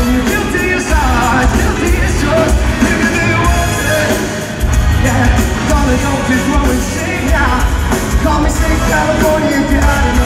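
Live pop-rock band playing loudly, with drums, electric guitar and horns, and a lead vocalist singing into a handheld microphone. The music dips briefly about four seconds in, then comes back in full.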